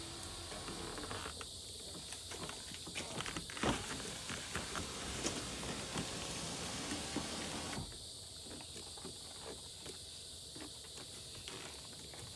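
Steady high hiss with a few light clicks and taps scattered through it. The lower part of the hiss drops away about eight seconds in.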